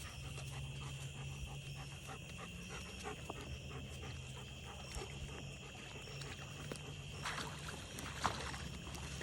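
Excited dog whimpering and panting, with small rustles and a louder scuffle near the end, over a steady high-pitched hum.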